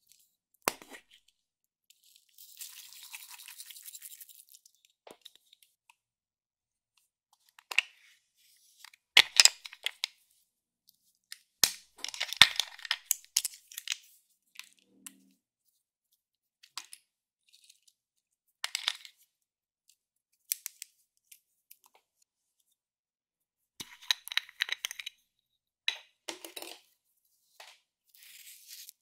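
Close-up handling of small plastic toys, cases and charms: scattered clicks, taps and rustles that come in short groups with gaps between them. Near the end, a plastic spatula scrapes pressed shimmer eyeshadow out of its pan with quick, fine scratching strokes.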